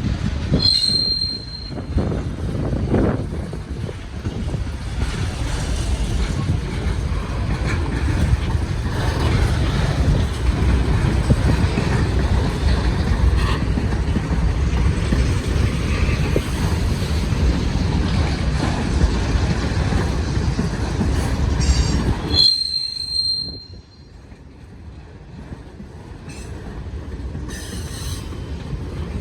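Freight train cars rolling past on a tight curve, wheels on the rails making a loud, dense low rumble. A brief high flange squeal comes about a second in and again around 22 seconds. The rumble cuts away suddenly about 22 seconds in and then slowly builds again.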